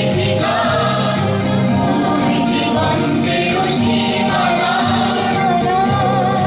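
A song: a voice singing a wavering melody over band accompaniment, with bass and a steady percussive beat.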